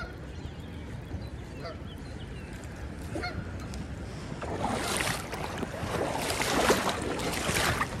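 Steady rush of a shallow creek riffle with a few faint bird calls in the first half. From about halfway a much louder close rustling and crackling takes over, handling noise right at the microphone.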